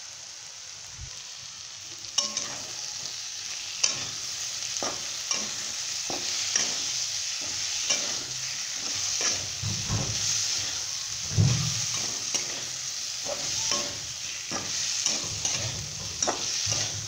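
Boiled potato pieces sizzling in hot tempered oil in a metal pan while a spatula stirs them, with repeated scrapes and taps of the spatula against the pan. The sizzling gets louder about two seconds in.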